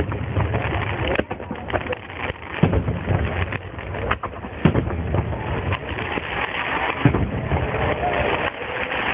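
Fireworks bursting: a series of sharp booms at irregular intervals over a constant background of crowd noise, thin-sounding as recorded by a mobile phone.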